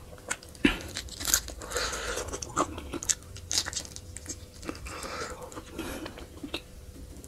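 A man eating meat from a cooked sheep's head with his hands: wet chewing and smacking mouth sounds broken by irregular sharp crunchy bites.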